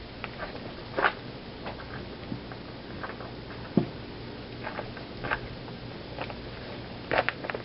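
A few scattered light clicks and knocks, a second or two apart, from hand tools being handled while a wrench is looked for.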